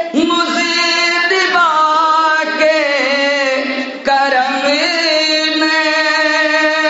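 A man singing a naat in long, drawn-out melismatic notes, with ornamented turns about three seconds in and again near the end, and a brief breath about four seconds in.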